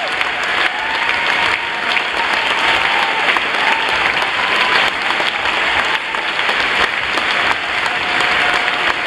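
A large concert audience applauding steadily, with a few long cheers from single voices over the clapping.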